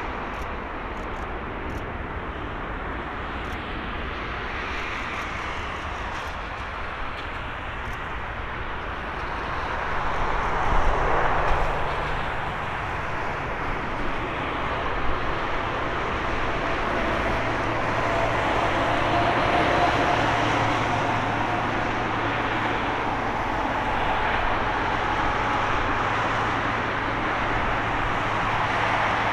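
Boeing 777-300ER's GE90 jet engines rumbling as the airliner rolls out along the runway after landing. The sound grows louder about ten seconds in and stays loud, with a steady whine coming through in the second half.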